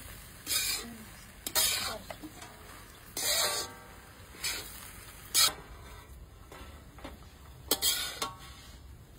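Metal spatula stirring and scraping puffed rice around a metal wok, a scrape about once a second, with one sharp metallic clink about five seconds in.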